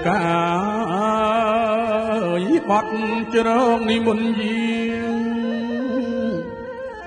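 Khmer phleng arak, traditional Cambodian spirit-ceremony music: one long melodic line held on a steady note with wavering ornaments, easing off just before the end.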